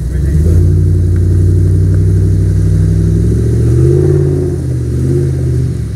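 Range Rover P38's 4.6-litre V8 through a custom exhaust, revving under load as the truck crawls through deep mud ruts. The revs come up sharply at the start, rise further about halfway through, ease off, climb again and dip briefly near the end.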